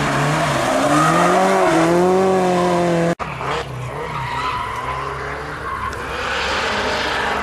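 Car engine revving hard through a tight slalom turn, its pitch rising and falling, with tyres squealing. About three seconds in the sound cuts off abruptly and a more distant engine runs on.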